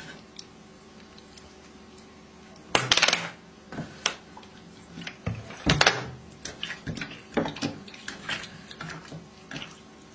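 A hand mixing food in a ceramic plate: scattered scrapes and clinks on the dish, with two louder noisy bursts about three and six seconds in.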